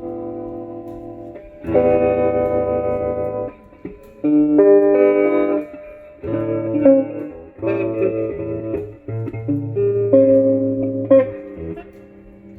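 Electric guitar chords played through a 1960s Sano amplifier as it is test-played after repair. About six chords, each struck and left to ring for a second or two before the next.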